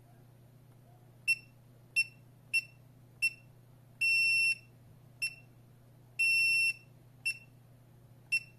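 Wireless touch alarm keypad beeping as its keys are pressed: a high electronic beep, four short beeps, a half-second beep, a short one, another half-second beep, then two more short beeps.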